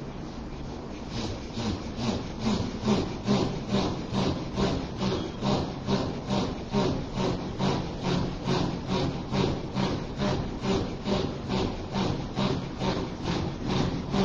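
A man's rhythmic, forceful breathing in dhikr practice: an even train of breathy strokes about two a second, starting about a second in, over a low steady hum.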